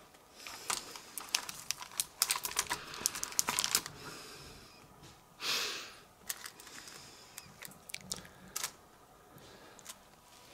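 Plastic comic-book bags crinkling and rustling as bagged comics are handled and slid into a wire spinner rack. A busy run of sharp crinkles over the first few seconds, one swish about five and a half seconds in, then scattered light crinkles and clicks.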